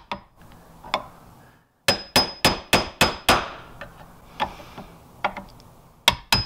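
A hammer tapping a flathead screwdriver against the parking-brake lever's retaining clip on an old drum brake shoe held in a vise, working the clip loose. Sharp metal-on-metal taps with a short ring: a quick run of about six strikes near two seconds in, with lighter, scattered taps before and after.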